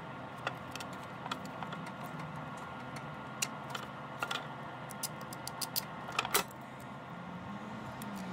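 Scattered light clicks and knocks of a rubber breather hose and hard plastic engine parts being handled as the hose is pushed under the engine cover.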